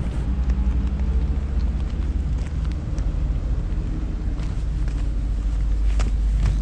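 A vehicle engine runs close by as a steady low rumble, with a few light clicks over it.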